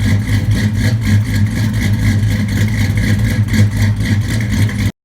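Loud vehicle engine running with an even, pulsing throb, cut off abruptly near the end.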